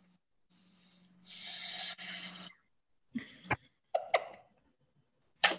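A person breathing out heavily in two puffs over about a second, followed by a few short clicks and knocks, heard through a video-call microphone.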